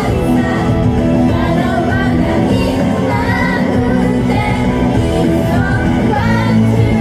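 Female idol group singing live into microphones over loud pop music.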